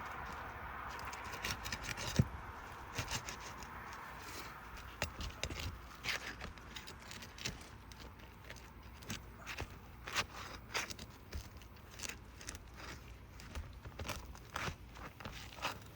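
Old, brittle asphalt roof shingles being pried loose, their sealant strip breaking: irregular crackling, clicks and scrapes.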